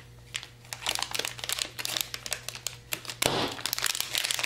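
Crinkling of thin plastic packaging as sealed blue pouches and small packets are handled, in many short crackles, with a louder rustle about three seconds in.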